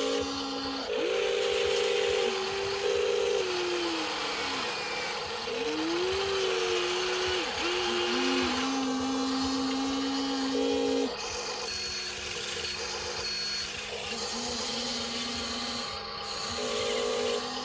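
Small electric motors of a radio-controlled toy excavator whining in short runs of one to three seconds as it works. The pitch slides up as each run starts and falls as it stops, over a steady low hum.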